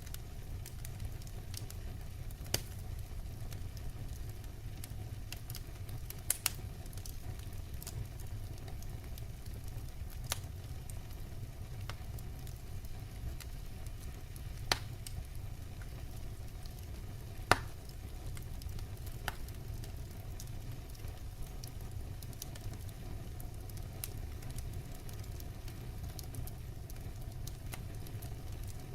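Firewood burning: a steady low rumble with sharp single pops and crackles every few seconds.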